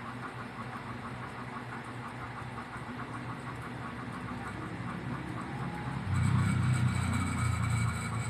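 Fast, continuous keyboard typing, a rapid run of small key clicks. About six seconds in, a louder low steady hum comes in under it.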